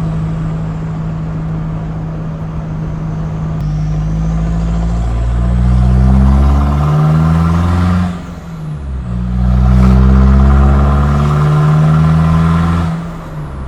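Mazda BT-50 ute's engine, fitted with a stage 1 high-flow turbo, accelerating under load: it runs steadily, then the revs climb, drop sharply at a gear change about eight seconds in, climb again and fall off near the end.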